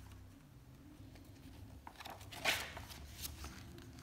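Quiet handling of a picture book and a paper stick puppet: one short paper rustle about two and a half seconds in, with a few faint clicks over a low steady hum.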